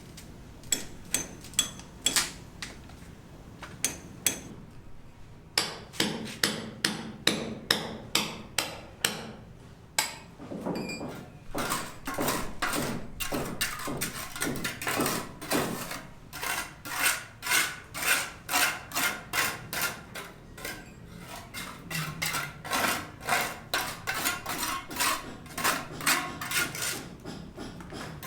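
Hammer blows, a few spaced strikes at first and then long steady runs of about two to three blows a second.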